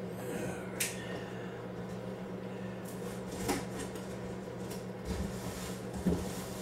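Cardboard shipping box being opened by hand: a few scattered scrapes, rustles and knocks of the cardboard over a steady low hum.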